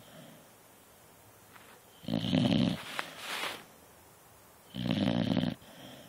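Beagle snoring in its sleep: two snores about three seconds apart, the first followed by a breathy exhale.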